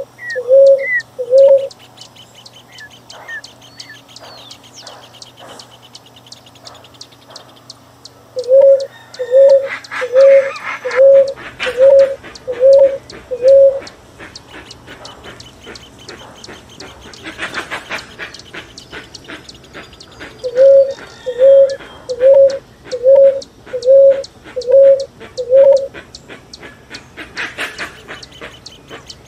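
Bird calls: runs of short, low, evenly spaced notes, a little more than one a second: a couple at the start, then two bouts of about seven each, with fainter higher chirps early on and a few brief rushes of noise between.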